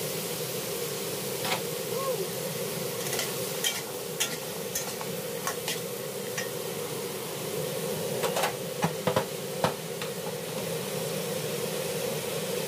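Pumpkin cubes sizzling steadily in a wok while a metal spatula stirs them, with sharp clicks and scrapes of the spatula on the pan, several in quick succession about two-thirds of the way through.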